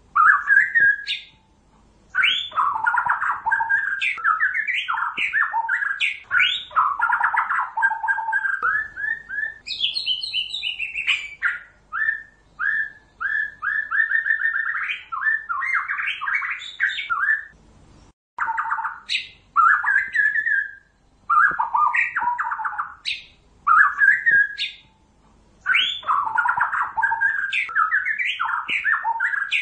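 White-rumped shama (murai batu, Pasaman type) singing loudly: rapid, varied phrases of whistles, chirps and rattling notes, broken by short pauses every few seconds. In the middle comes a run of quick, evenly repeated notes.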